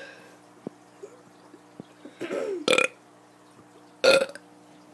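A boy burping on purpose: a quieter burp a little after two seconds, followed closely by two short, loud burps about a second and a half apart.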